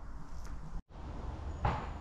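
Quiet room tone with a low steady hum, cut off completely for a moment about a second in. Near the end there is one brief, soft rustle-like noise.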